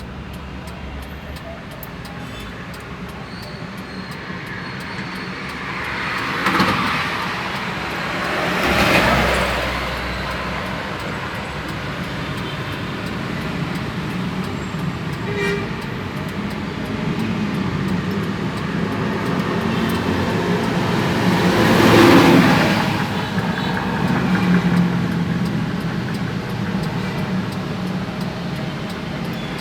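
Road traffic: a motor vehicle engine running steadily, with vehicles passing that swell up and fade three times, the loudest about two-thirds of the way through.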